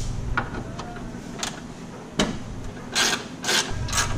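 Hand wrench at work on bolts in an engine bay: a few scattered metal clicks, then several short ratcheting strokes from about three seconds in.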